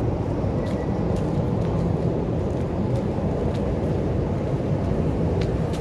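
Steady low rumble of city street noise and traffic, with a few faint ticks over it.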